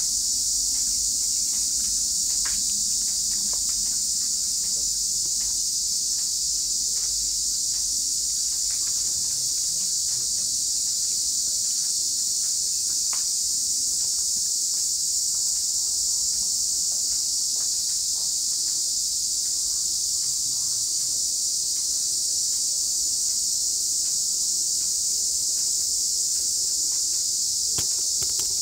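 A steady, high-pitched chorus of insects that does not let up, with a few faint clicks and taps beneath it.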